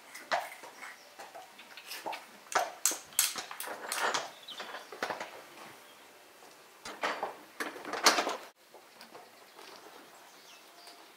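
Irregular scrapes, knocks and clatters of a Clydesdale-cross horse being handled and tacked up on a stable's concrete floor, loudest about eight seconds in, then cutting off abruptly.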